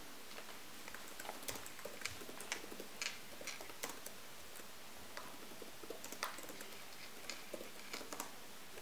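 Keys of a computer keyboard being typed, irregular light clicks in two quick runs with a short pause between them, over a faint steady hiss.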